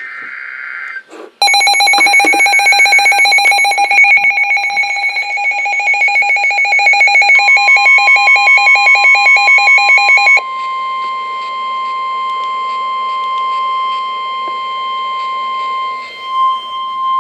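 The last burst of a NOAA Weather Radio SAME data header screeches briefly at the start. Then a weather radio receiver sets off its own loud, rapidly pulsing electronic alert beeping for a severe thunderstorm warning. About halfway through the broadcast's steady 1050 Hz Warning Alarm Tone comes in, and it carries on alone after the receiver's beeping cuts off, until near the end.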